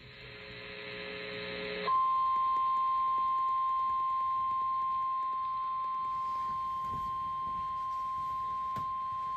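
NOAA Weather Radio 1050 Hz warning alarm tone: after a rising hiss of radio static, a single steady high-pitched tone starts about two seconds in and holds. It is the alert signal that comes before a warning broadcast.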